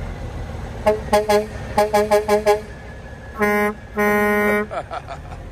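Semi-truck horn honked in a rhythmic pattern on one steady pitch: three short toots, then five quick toots, then two longer blasts, the last about half a second long.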